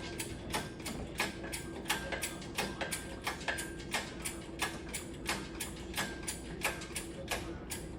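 A ratchet mechanism clicking steadily, about three even clicks a second, over a faint steady hum.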